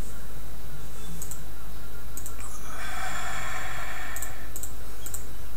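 A computer mouse clicking about five times while settings are picked from dropdown menus, over a steady low hum. A breathy rush, like an exhale near the microphone, sits in the middle for about a second and a half.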